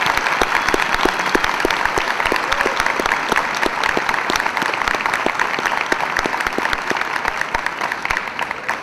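Audience applauding, many hands clapping together, fading away near the end.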